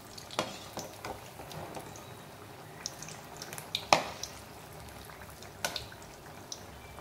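Rava paniyaram batter balls deep-frying in hot oil: a steady bubbling sizzle with scattered small crackles, while a slotted metal spoon turns them. A sharp metallic clink of the spoon against the pan about four seconds in.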